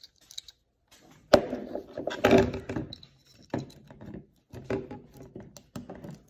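Irregular clicks, knocks and clattering from handling the alarm clock, with one sharp click about a second in as the loudest sound.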